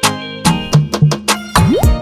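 Background music with a steady beat of drum hits and plucked or synth notes, with a rising sweep near the end.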